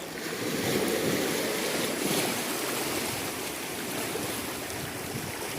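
Steady rushing of water, a little louder from about a second in.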